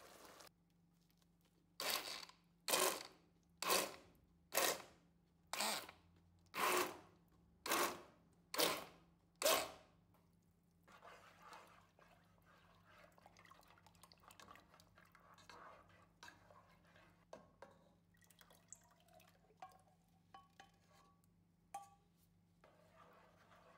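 Kitchen tongs stirring thick red lentil soup in a nonstick pot: nine strokes about a second apart, then softer, irregular stirring sounds in the liquid.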